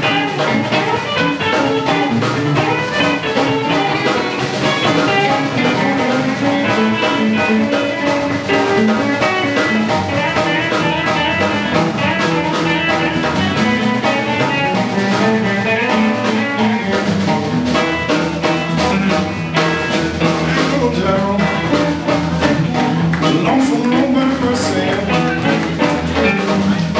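Live blues band playing an instrumental stretch on electric guitars, upright double bass and drum kit, with no singing.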